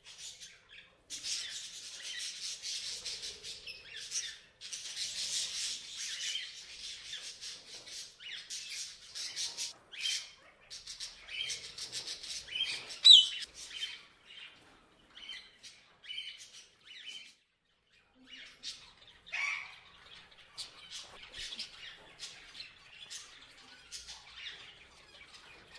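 Parrots chirping and squawking. A busy, continuous chatter fills the first half, with one sharp, loud squawk about thirteen seconds in. After a brief pause the calls become sparser and separate.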